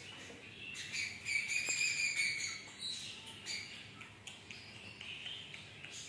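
Cockatiel singing: a run of whistled notes with quick chattering, loudest about a second in, with one held whistle near two seconds in.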